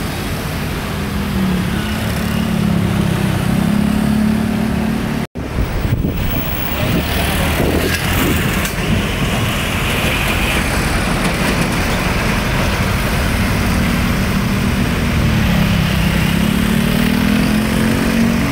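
Street traffic: small motor scooter engines running and passing close by, their pitch dipping and rising as they go past. About halfway through, a Hino flatbed truck's diesel engine drives past. The sound cuts out for an instant about five seconds in.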